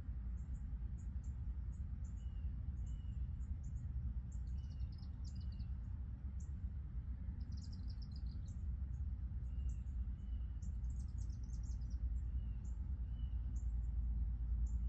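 Small birds chirping: short high chirps repeated throughout, three brief rapid trills, and soft paired notes, over a steady low rumble.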